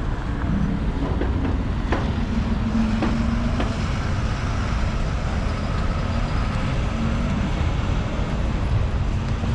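Road traffic passing close by: a steady rumble of vehicles with the drone of a heavy vehicle's engine, and a few short clicks about two to four seconds in.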